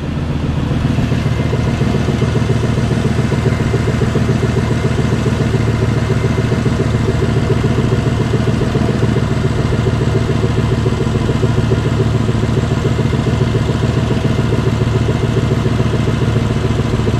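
Lexus LX470's 4.7-litre V8 idling steadily, heard close up with the hood open.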